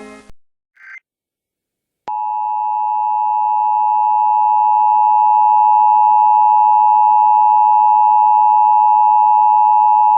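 Emergency Alert System attention signal: two steady tones sounding together, 853 and 960 Hz, starting about two seconds in and holding unchanged for about eight seconds. A brief faint chirp comes about a second in.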